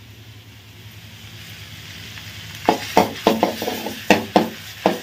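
Chopped vegetables sizzling in a steel kadai over a gas flame, the sizzle slowly growing. A little past halfway a steel ladle starts stir-frying them, scraping and knocking against the pan in a quick run of sharp clanks.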